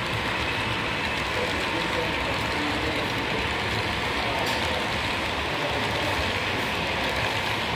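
HO-scale model freight cars rolling steadily past on the track, a continuous rolling rumble of small wheels on rail, over an indistinct murmur of people talking in the hall.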